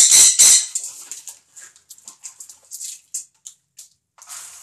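Parrots squawking: a few loud, harsh calls at the start, then scattered faint chirps and clicks.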